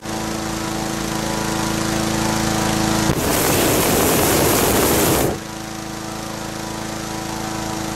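Petrol-engined inflator fan running steadily while filling a hot air balloon envelope; about three seconds in, the propane burner fires a loud rushing blast for about two seconds, the loudest sound here, then cuts off as the fan carries on: the hot-inflation stage.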